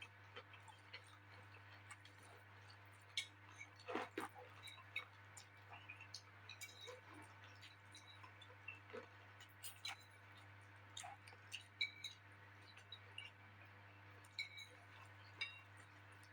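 Faint eating sounds close to the microphone: scattered wet chewing, lip smacks and small clicks, with a louder knock about four seconds in, over a steady low hum.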